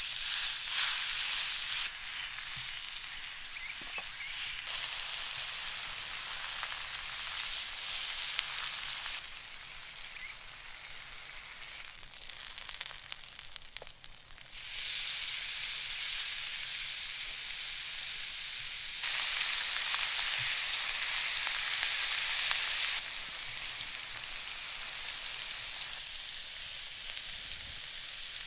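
T-bone steak sizzling on a ridged cast-iron grill pan over hot coals: a steady frying hiss that grows louder and softer in stretches.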